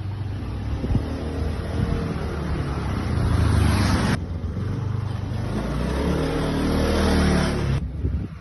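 Motor vehicle engine running and revving while driving, its pitch rising and falling over a steady rush of air. The sound breaks off abruptly about four seconds in and again near the end.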